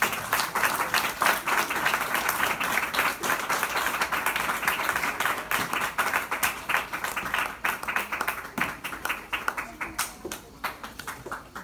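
Audience applauding, many hands clapping at once. It starts loud and thins out toward the end.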